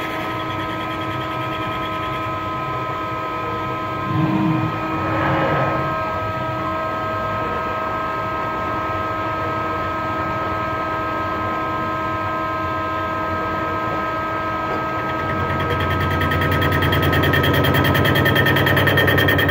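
Mazak CNC lathe running with a crankshaft spinning in it: a steady machine hum with several constant whining tones, and a brief louder burst about four seconds in. Over the last few seconds a fast, even throb builds and grows louder.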